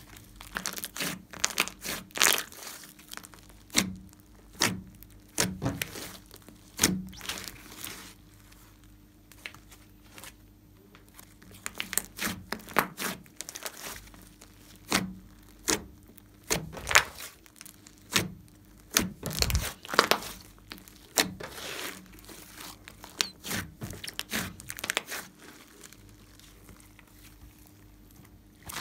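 Hands stretching, folding and pressing a large mass of glossy slime, making irregular sticky pops and clicks with a couple of quieter pauses.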